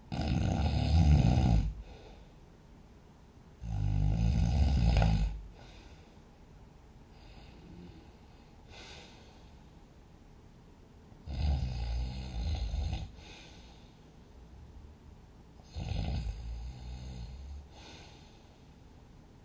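Loud snoring: four long snores, each about a second and a half, with fainter sleep breathing between them.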